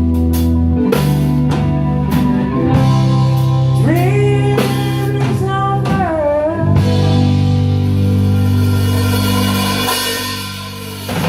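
Live rock band playing the closing bars of a slow ballad: held chords over bass and drums, with a bending lead line in the middle. It fades, then ends on a final hit that stops sharply.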